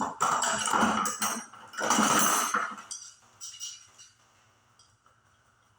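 Metal bicycle chain rattling and clinking as it is handled, in two bursts over the first three seconds, then a few lighter clinks about three and a half seconds in.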